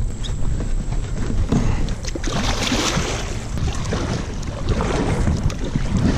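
Kayak paddle splashing through the water in strokes, over a low wind rumble on the microphone.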